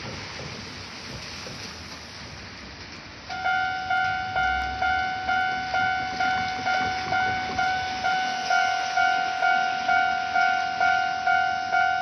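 Steady rain, then about three seconds in a railway level crossing's electronic warning bell starts, dinging evenly about twice a second.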